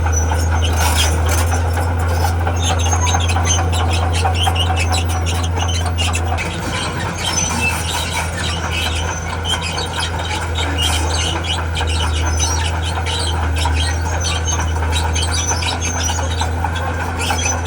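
Diesel engine of a tracked earthmoving machine running steadily while its steel tracks squeal and clank as it moves. The engine note drops a little about six seconds in.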